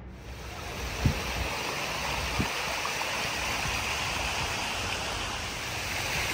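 Water running over a shallow outdoor water feature, a steady rushing, with two dull thumps about one and two and a half seconds in.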